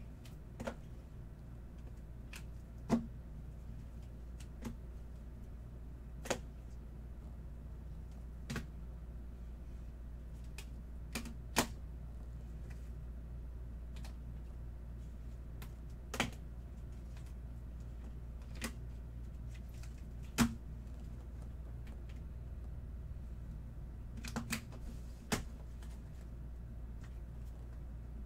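Trading cards and rigid plastic card holders being handled and set down on a table: scattered sharp clicks every few seconds, a quick cluster of them near the end, over a steady low hum.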